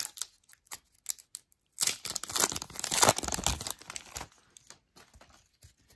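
Foil wrapper of a hockey card pack being torn open and crinkled in a run of crackly rips, loudest about two to three and a half seconds in, then fading to a few light crinkles.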